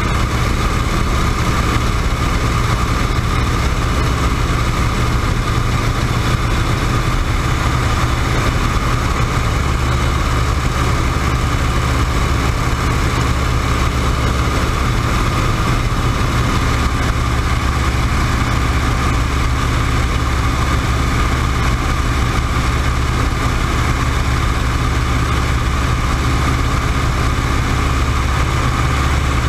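WACO YMF-5 biplane's seven-cylinder Jacobs radial engine and propeller droning steadily at cruise power in flight, heard from the open cockpit with wind rushing past.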